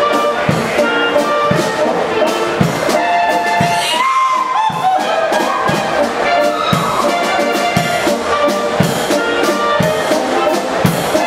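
Brass band playing the tune for a Zwoasteirer, a Bavarian folk dance, with held melody notes over an even pulse of bass notes. About four seconds in, the bass drops out briefly under one long held note.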